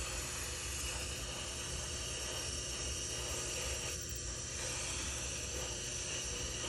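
Dental suction and air-water syringe hissing steadily during the final rinse of the patient's mouth.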